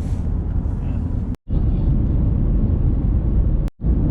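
Low, steady road and engine rumble of a car in motion, heard from inside, cutting out briefly twice.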